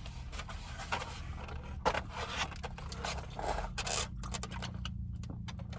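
Eating sounds: chewing and mouth noises with scraping and rustling as takeout food is handled, and a few short sharp clicks, the clearest about two seconds in and near four seconds.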